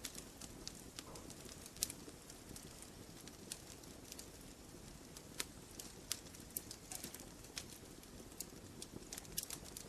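Campfire logs burning, with irregular sharp snaps and pops over a low steady hiss.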